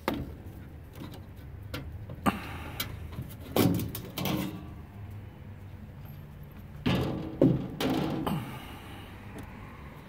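Sheet-metal lower access panel of a gas furnace being worked loose and lifted off the cabinet: a sharp click, a few knocks, then two longer bouts of metal scraping and rattling, the louder one about seven seconds in.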